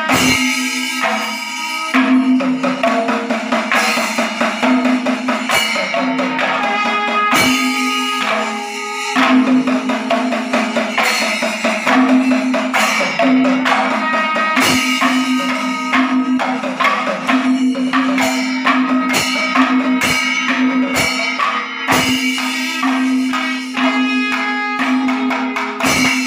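Panchavadyam, the Kerala temple percussion ensemble, playing: timila and maddalam drums with small cymbals in a dense, continuous rhythm, over a steady pitched tone.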